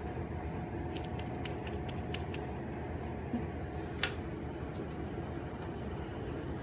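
Small puppies tussling: a few light clicks and one sharper click about four seconds in, over a steady background hum.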